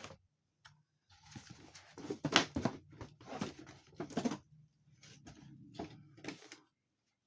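Boxed action figure packages being handled: irregular rustles and light knocks of card and plastic packaging.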